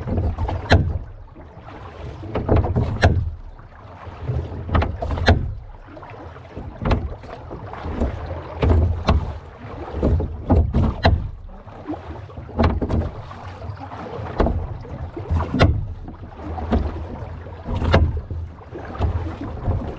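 Rowboat being rowed: the oars knock in their oarlocks and swish through the water with each stroke, about one stroke every two seconds.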